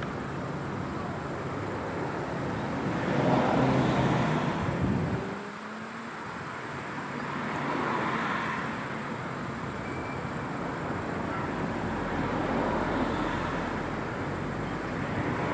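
Street traffic: steady vehicle noise with a low engine hum, and a car passing louder about three to five seconds in.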